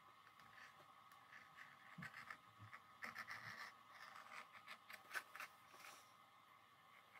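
Faint scraping and light clicks of a sewing awl's needle pushed through leather and the thread pulled after it, busiest from about two to three and a half seconds in, with one sharper click about five seconds in.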